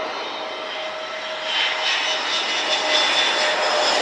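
Airbus A320neo jet engines on final approach to land: a steady rushing hiss with thin whining fan tones, growing louder over the second half as the airliner comes in over the runway.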